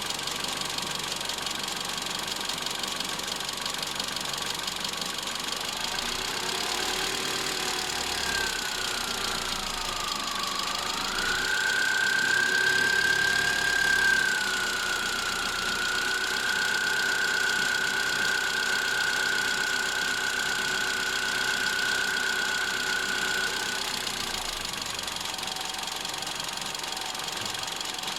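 Car engine idling, with a high-pitched whine that appears when the heated windscreen is switched on: it comes in about a third of the way through, dips and rises in pitch, holds a steady note for about twelve seconds, then stops abruptly.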